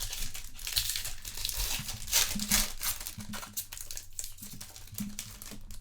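Foil wrapper of a Topps Chrome trading card pack crinkling as it is handled and torn open, a dense run of crackles loudest about two seconds in.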